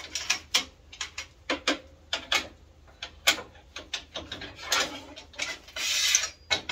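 Plastic and aluminium parts of a Bosch GTS 635-216 site table saw being handled: a rapid run of sharp clicks and knocks as the rip fence is moved and clamped, with a short scrape near the end.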